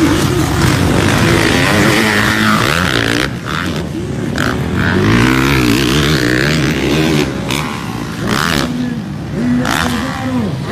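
Motocross dirt bike engines revving hard, their pitch rising and falling over and over as the riders work the throttle through the track, with more than one bike heard at once.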